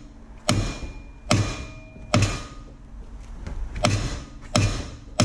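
A hammer strikes a Honda brake rotor at a seized rotor retaining screw six times, in two groups of three with a pause between. Each blow is a sharp metallic hit, some leaving a brief ring. The blows are meant to break the corrosion's grip so the screw will turn without stripping.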